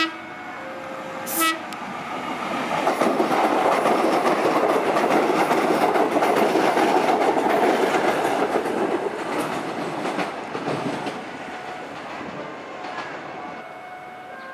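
Diesel multiple unit train giving a short horn blast about a second and a half in, then passing at speed with wheels clattering on the rails. The passing noise swells, holds loud through the middle, and fades away.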